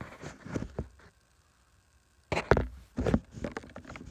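Camera handling noise: irregular knocks and rustling. It drops out to dead silence for about a second, then comes back with a few louder thumps.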